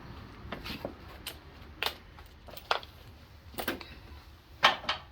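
Irregular clinks and knocks of hand tools being handled while working on a lawn tractor, about seven sharp strikes, the loudest a little before the end.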